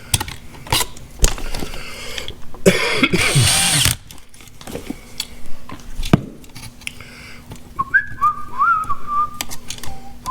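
Clicks and knocks of hand tools and wiring being worked in a switch box, a brief power-tool whir of about a second roughly a third of the way in, and a man whistling a few wavering notes near the end.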